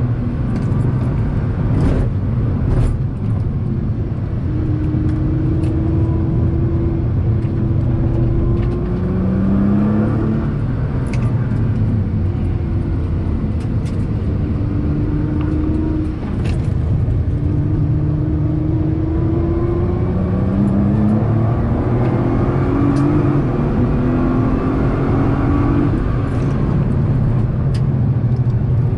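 Nissan GT-R R35's twin-turbo V6, heard from inside the cabin at speed. Its pitch rises in several pulls and drops back between them, over a heavy low rumble, with a few sharp clicks.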